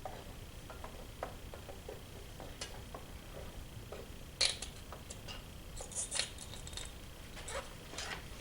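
Scattered light clicks and taps of small hard objects being handled, as the digital borescope is worked in a small hole bored in a steel safe. The sharpest click comes about four and a half seconds in, with a close pair around six seconds.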